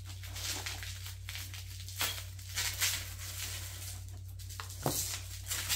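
Taped plastic wrapping being crinkled and torn open by hand, with sharper rips about 2, 3 and 5 seconds in.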